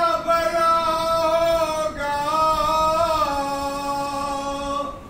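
A man singing a noha, the Shia mourning elegy, unaccompanied. He holds one long steady note for about two seconds, then sings a second drawn-out phrase that dips in pitch and breaks off just before the end.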